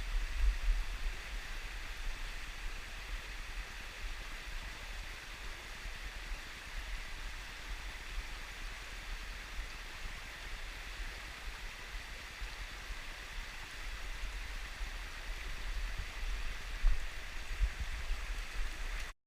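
Mountain stream rushing steadily, with an uneven low rumble on the microphone that swells about 17 seconds in. The sound cuts off suddenly near the end.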